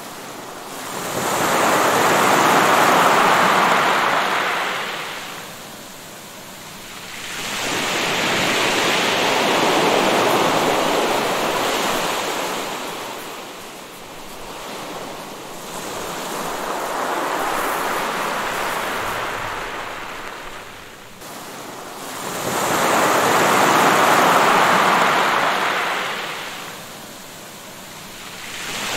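Sea waves breaking and washing up a shore, the surf swelling and fading four times, about every seven seconds.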